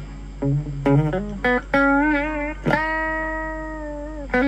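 Electric guitar played through a Blackstar ID:Core Stereo 10 V2 practice amp with its delay effect on: a few single picked notes, one with vibrato, then a note held and fading for about a second and a half, and a new note picked near the end.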